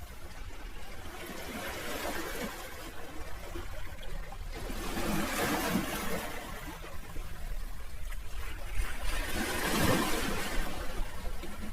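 Sea waves washing on the shore, a steady rushing hiss that swells with each wave, rising about five seconds in and again near the end.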